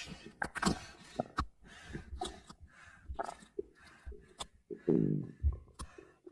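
Stomach growling and gurgling: a run of short wet pops and squelches, with a longer bubbling growl about five seconds in.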